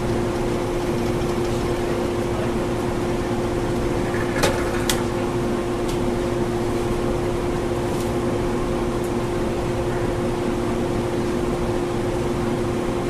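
A machine running steadily with a constant hum over an even noise, and a few light clicks or taps from about four and a half to nine seconds in.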